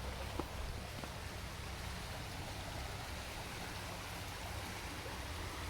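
A swollen, fast-flowing creek rushing steadily, an even hiss of water, with a small click about half a second in.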